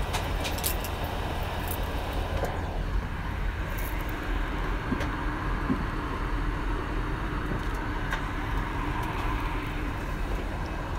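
Steady rushing cabin noise of an airliner, deepest at the low end, with a few faint clicks.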